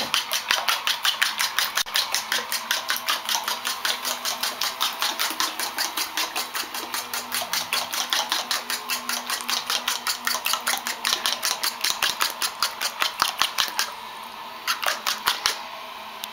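Eggs being beaten with a fork in a bowl: fast, even clicking strokes, about five a second. The strokes stop near the end, then come back for a few more.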